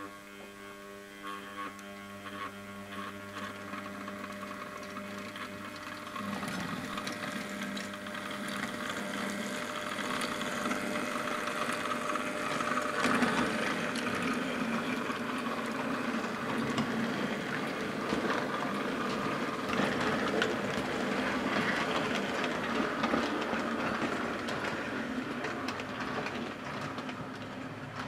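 00 gauge model train running: a Bachmann BR Standard 3MT tank locomotive hauling six-wheel milk tankers and vans. At first it is a steady electric motor hum. From about six seconds in a louder rattle and clicking of wheels over the track takes over as the wagons roll close past, fading out at the very end.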